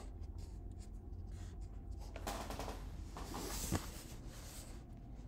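Rubber brake guide-pin bushing being worked into a BMW 535i front caliper with needle-nose pliers and a hand pushing from behind: faint scratching and rubbing. The scraping grows louder past halfway, with one sharp click, pliers or bushing snapping against the metal.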